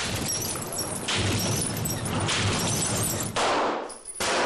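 Blast and glass-shattering noise: a dense crashing rush that surges again about a second in, at two seconds and near three and a half. Just before the end comes a sharp loud bang, a pistol shot into glass.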